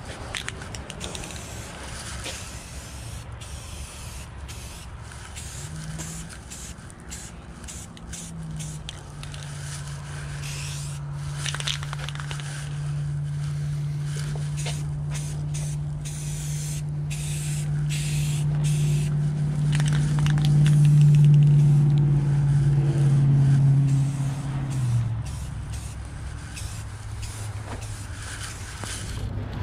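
Aerosol spray-paint can hissing in on-and-off bursts as paint is sprayed onto a carved wooden bear. Under it, a low steady motor drone comes in about six seconds in, is loudest a little after twenty seconds, then drops in pitch and fades about twenty-five seconds in.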